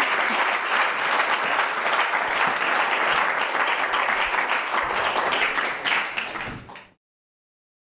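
Audience applauding: dense, steady clapping that fades out near the end and cuts off.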